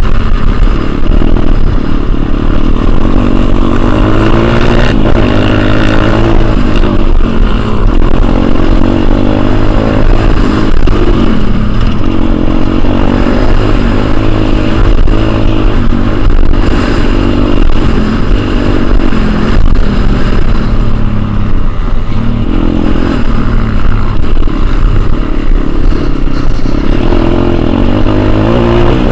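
Pit bike engine heard close up from a camera on the bike while riding a dirt motocross track: loud, revving up and easing off every second or two under throttle and gear changes, over a constant low rumble.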